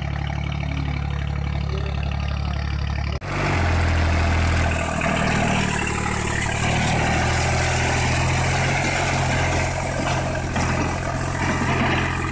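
Tractor's diesel engine running steadily while the tractor is stuck in deep mud. About three seconds in, the sound breaks off and returns louder and closer, with the rear tyres spinning and churning through the mud.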